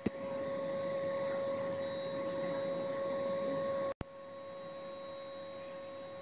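A steady electrical hum with a faint whirring noise under it, cutting out for an instant about four seconds in and going on a little quieter.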